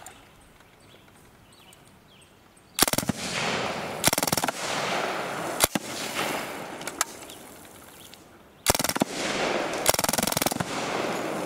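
Suppressed MAC-10 submachine gun fired full-auto in rapid bursts: a long burst about three seconds in, a lone shot in the middle, and a second long burst about nine seconds in.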